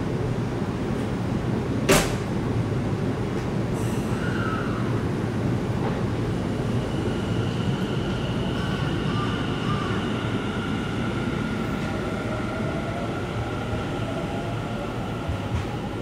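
Tobu 50090 series electric train pulling out of the platform. A sharp clack about two seconds in, a short hiss of air soon after, then the whine of its traction motors as it gathers speed over steady rolling rumble.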